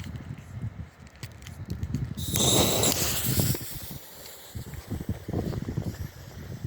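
A sharp hiss of about a second and a half, typical of a firework fuse catching and spitting as it is lit, over a low rumble and rustling.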